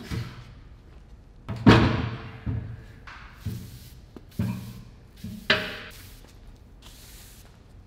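Heavy steel welding table lying on its side thudding on a concrete floor as it is shoved and rocked, about six thuds with the loudest about two seconds in. Mixed with the scratchy brushing of a broom sweeping concrete.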